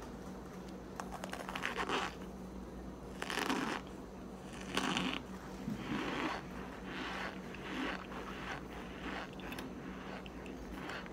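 Chunks of compressed cornstarch being bitten and crushed, in about a dozen short, irregular crunches.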